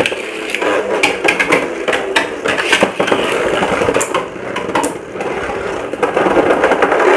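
Two Beyblade Burst spinning tops, Tempest Dragon and Lucifer the End, launched into a plastic stadium at the start, then whirring and rattling as they spin. Their repeated collisions with each other and the stadium wall make many sharp clicks.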